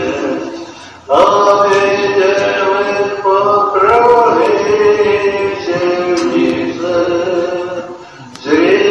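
A Russian Orthodox priest singing a chant in long held notes, with short pauses between phrases about a second in and near the end.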